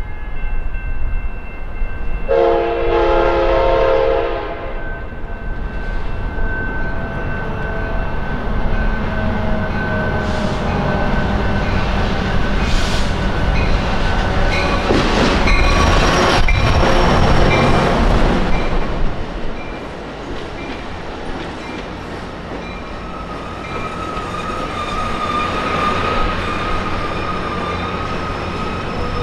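Amtrak California F59PHI diesel locomotive sounds its horn in one chord of about two seconds, a couple of seconds in, then its engine and wheels pass loudly about halfway through. Bilevel passenger cars follow, rolling past with wheel noise on the rails.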